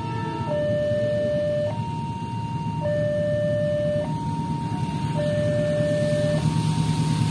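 A two-tone warning siren alternating between a low and a high note, each held a little over a second. Under it, a low rumble from an approaching train grows louder in the second half.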